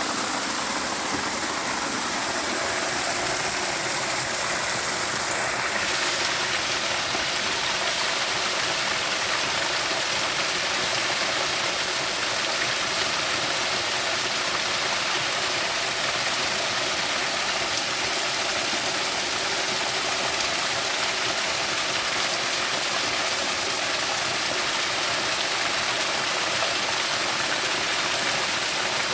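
Steady rushing water, like a stream or waterfall, a constant hiss that grows slightly brighter about six seconds in.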